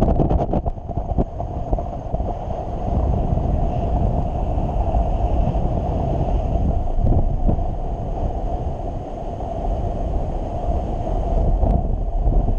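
Wind rushing over the microphone of a paraglider pilot's camera in flight: a steady low roar with no pitch, with a quick run of clicks right at the start.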